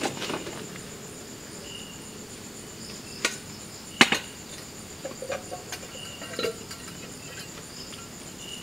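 Night insects, crickets, chirping steadily with high thin trills and short repeated chirps. A few sharp knocks and small clatters break in, the loudest about four seconds in.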